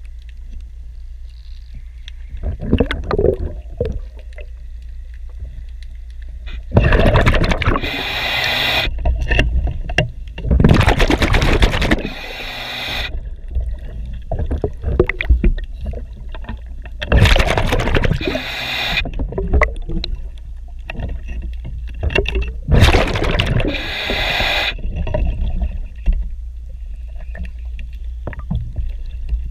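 Diver breathing underwater through a regulator: four loud rushes of exhaled bubbles, each about two seconds long, come every five or six seconds over a steady low rumble. A few light knocks fall between the breaths.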